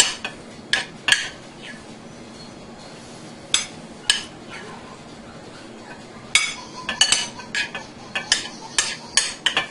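A serving utensil clinking and scraping against the cooking bowl and plate as cooked rice and chicken are dished out: a few separate clinks at first, then a quicker run of them over the last few seconds.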